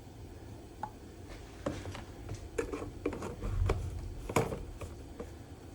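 Scattered light clicks and knocks of a small plastic funnel and oil bottles being handled, with a dull thump about three and a half seconds in and a sharper knock just after.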